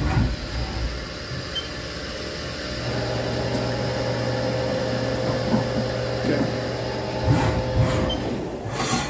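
Haas VF4SS chip auger motor running, a steady hum with a faint whine that starts about three seconds in and stops about five seconds later. A few knocks sound near the end.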